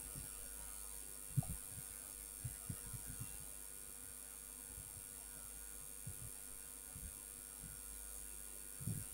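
Steady electrical hum with a faint high whine, broken now and then by a few soft low thumps, the clearest about a second and a half in and just before the end.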